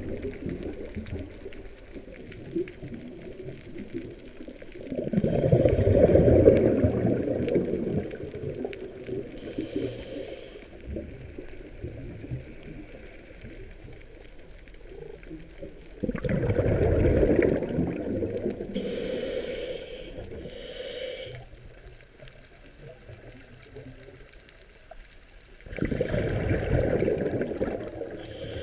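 A scuba diver's breathing through a regulator: a loud rumble of exhaled bubbles comes three times, about ten seconds apart, with fainter hissing inhalations in between.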